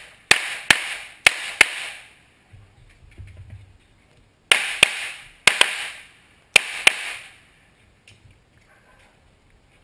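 Handgun fired in rapid pairs of shots: two pairs in the first two seconds, then after a pause of about two and a half seconds three more pairs about a second apart, each shot cracking sharply with a short echo.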